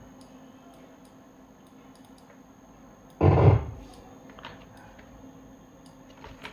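Quiet room tone with a few faint computer mouse clicks, and one brief vocal sound about three seconds in.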